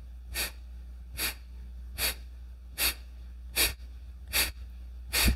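Kapalabhati breathing: a row of short, forceful exhalations through the nose, each one a snap of the belly, evenly spaced a little more than one a second, seven in all.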